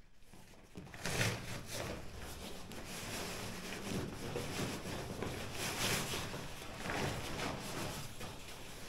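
Rustling and crinkling of a sleeping bag being handled and spread out, starting about a second in and going on irregularly.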